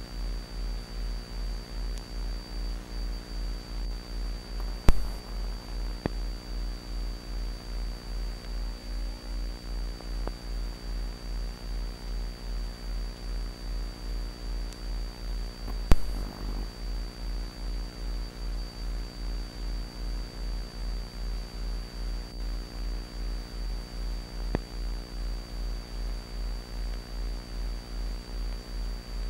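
Low electrical hum pulsing about twice a second, with a faint steady high whine over it and a few sharp pops, two loud ones about five and sixteen seconds in.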